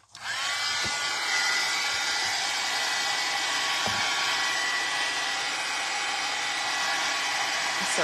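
Craft heat tool switched on and blowing steadily, with a thin high whine, as it dries wet ink on paper cards.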